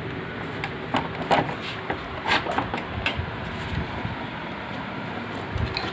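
Scattered clicks and knocks, a few louder ones in the first three seconds, over a steady low hum.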